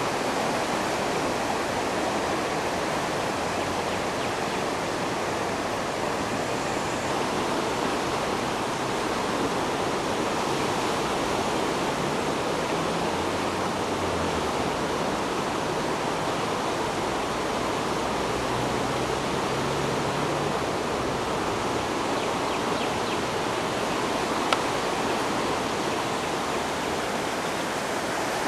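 Fast-moving floodwater of a swollen river rushing past, a steady, unbroken hiss of flowing water.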